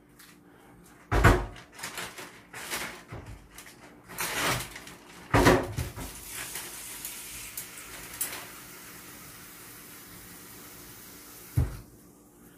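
Kitchen cabinets and dishes being handled: three loud thumps, about a second in, in the middle and near the end, with smaller clinks and knocks between the first two and a steady hiss for several seconds after the middle one.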